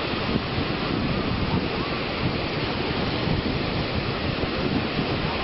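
Steady rushing noise of sea surf, mixed with wind buffeting the microphone.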